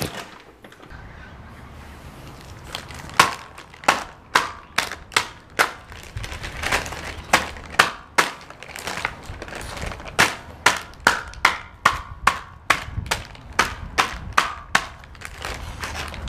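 A mallet pounding a block of solid jaggery in a plastic bag on a plastic chopping board, breaking it into small pieces: repeated sharp blows, about two a second, starting about three seconds in.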